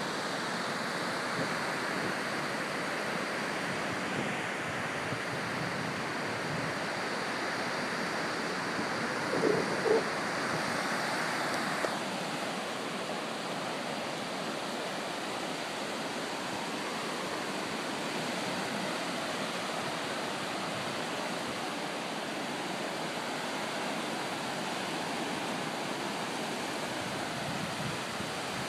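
Small surf breaking and washing up a sandy beach: a steady rush of waves, easing a little about twelve seconds in.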